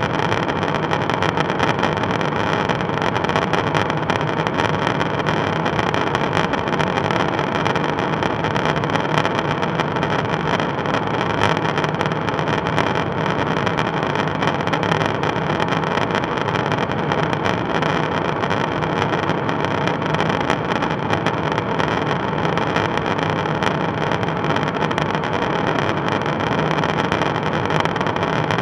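Steady in-flight drone of a KC-135 Stratotanker, heard from inside the boom operator's pod: rushing airflow and engine noise, loud and unchanging, with a few steady hum tones running through it.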